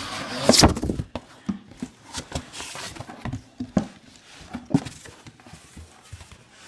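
Cardboard box being opened and its firework cakes handled. There is a loud rustling clatter about half a second in, then scattered knocks and rustles as the contents are moved.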